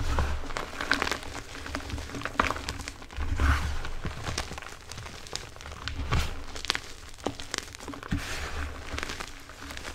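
Blocks of Asana gym chalk, topped with shaving cream, being crushed and squeezed by hand: an irregular run of crisp crunches and crumbling crackles, with dull low thumps every few seconds as the hands press down into the bowl.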